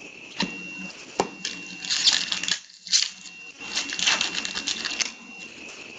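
Hands leafing through a stack of trading cards, the cards clicking and rustling against each other in two quick flurries, about two seconds in and again about four seconds in. A faint steady high tone runs underneath.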